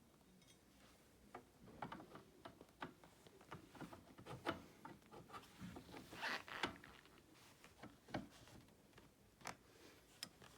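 Faint clicks, knocks and rubbing of a recliner's handle being fitted back onto its metal extension rod, with a short scraping rush a little past the middle.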